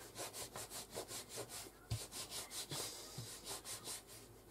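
Fingers rolling a thin strand of black polymer clay back and forth on a plastic cutting mat: a faint, even rubbing, about five strokes a second, with a soft knock or two as the hand touches down.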